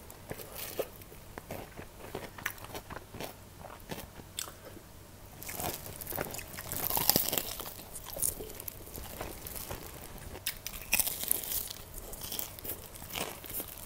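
Crispy fried chicken being bitten and chewed: crunching of the batter crust mixed with chewing, a run of crackly crunches that is busiest about halfway through and again shortly before the end.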